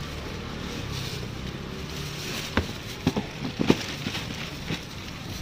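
Steady background hum, with a cluster of sharp crinkles and knocks about two and a half to four seconds in as a plastic bag of seafood is handled.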